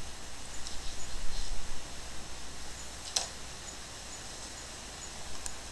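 Low steady hum and faint rustling, with one sharp click about three seconds in and a fainter click near the end.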